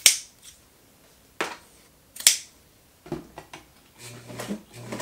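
Large scissors cutting through nylon webbing strap: three sharp snips about a second apart. Near the end, a few clicks, then an electric Singer sewing machine motor hums in short spurts.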